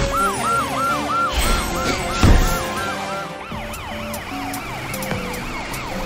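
Cartoon police-truck siren yelping, rising and falling about three times a second, then switching to a higher, wider sweep about halfway through, over background music. A single loud thump about two seconds in.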